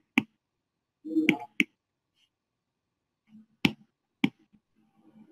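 About five sharp, separate clicks or snaps at irregular intervals, with a faint low murmur between some of them.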